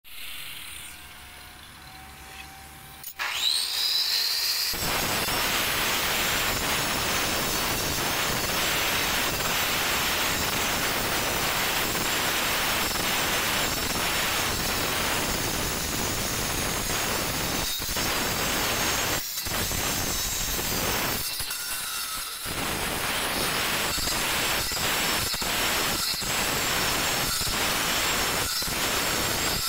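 Handheld angle grinder spinning up about three seconds in with a rising whine, then grinding into white stone with a loud, steady grinding noise. The noise drops off briefly a few times in the second half.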